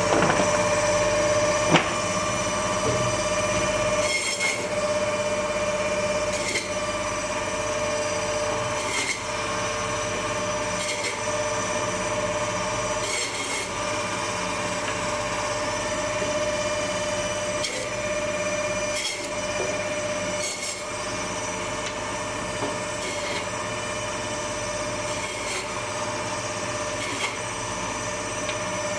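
Meat band saw running with a steady, high whine, its blade cutting chunks of meat into cubes, with a brief rasp every couple of seconds as each piece is pushed through the blade.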